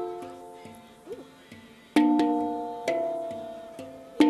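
Steel handpan struck by hand, each note ringing with several overtones and dying away slowly. A note already ringing fades out, then two notes are struck about a second apart midway, and another just at the end.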